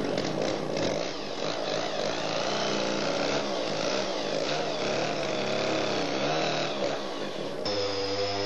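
Chainsaw cutting into the trunk of a large dead tree near its base, running steadily under load with its pitch wavering slightly. Near the end it switches abruptly to a steadier, even tone.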